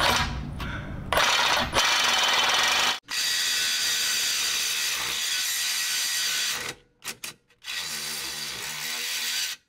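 Power saw cutting through a thick steel tow-hook ring on a bumper bracket, running in three long stretches with short breaks between them. The blade is worn and dull, but it is still cutting.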